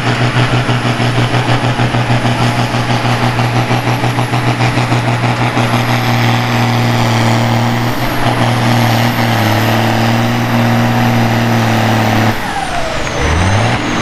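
Turbocharged Mercedes OM352 six-cylinder diesel in a pulling tractor, running hard at steady high revs with a high turbo whistle that slowly rises; the engine sound pulses rapidly at first, then evens out. Near the end the throttle is closed: the engine note drops suddenly and the turbo whistle falls away.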